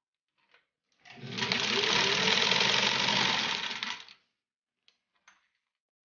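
The gear-driven motor of a 1948 Singer 15-91 sewing machine runs for about three seconds, sewing through eight layers of denim. It builds up quickly, holds steady and winds down. A few faint clicks come before and after it.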